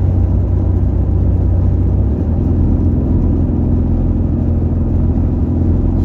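Car driving on a highway: steady low road rumble and engine drone. About two seconds in, a steadier engine hum joins.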